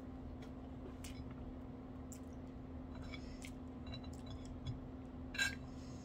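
Quiet eating sounds from noodles eaten by hand: scattered small clicks and mouth smacks from chewing, with a louder smack about five and a half seconds in, over a steady low hum.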